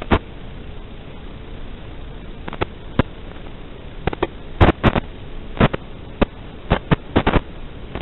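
Steady hiss of an analog FPV video link's audio channel, broken by irregular sharp pops and crackles of radio interference, bunched in the middle of the stretch and again later.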